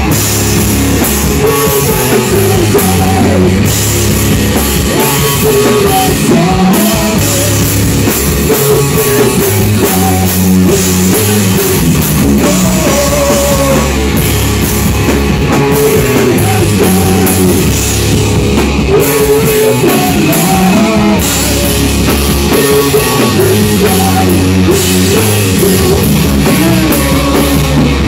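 Stoner rock band playing loud, with electric guitar and a drum kit over heavy low notes.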